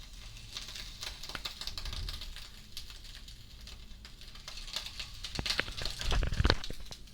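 Banana leaf crackling and ticking in irregular bursts as it heats in a pan under a pizza slice, with a louder low bump about six seconds in.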